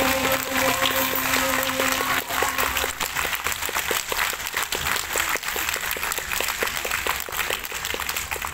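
Audience applauding at the end of a live song, the band's final held chord dying away in the first few seconds. Through the middle the clapping takes on a steady, even beat.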